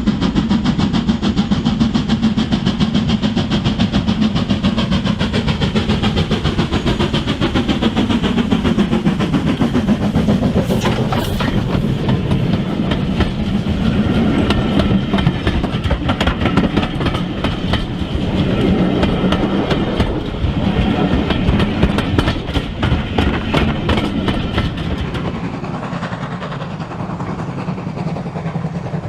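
OO-gauge model train running on the layout: a steady motor hum under a fast, dense clicking of wheels over the track, dropping in level about three-quarters of the way through.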